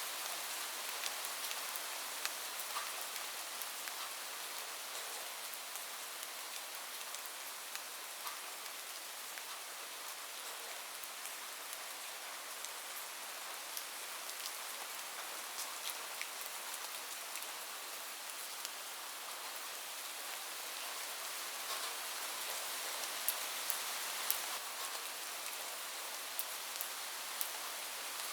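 Steady rain falling on a roof: a dense, even hiss with scattered sharper drop ticks, a few louder ones near the end.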